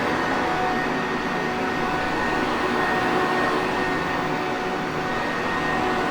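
Sanitaire Perfect vacuum cleaner running steadily: an even rush of air with a thin, steady motor whine of a few high tones riding over it.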